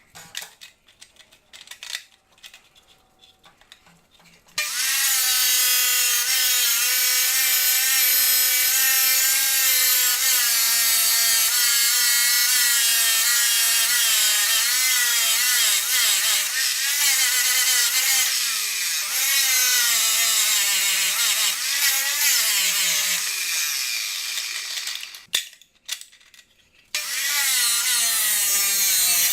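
Electric power tool cutting steel: a loud motor whine with hiss that dips in pitch and recovers again and again as it bogs under load. A few knocks come before it starts. It stops for a moment and starts again near the end.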